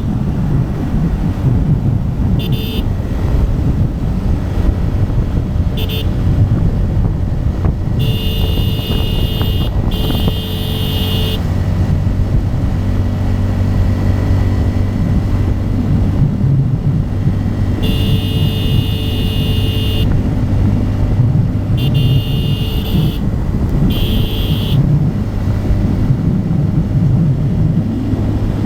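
Bajaj Pulsar N250's single-cylinder engine running steadily at highway cruising speed. Vehicle horns sound over it in about seven blasts, some short and some lasting two to three seconds.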